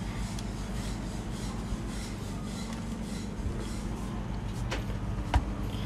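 Steady low hum with faint rubbing and handling noise, and a couple of light clicks near the end.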